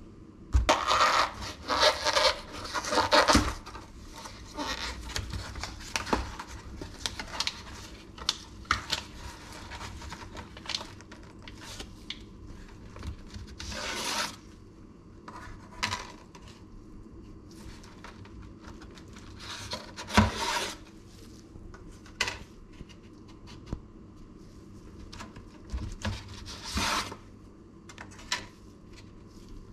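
A cardboard box of dry lasagna sheets is torn open and handled, with loud rustling and tearing of the box and its paper liner in the first few seconds. Then come scattered rustles, clicks and light clatters as stiff dry pasta sheets are drawn out and laid into a frying pan.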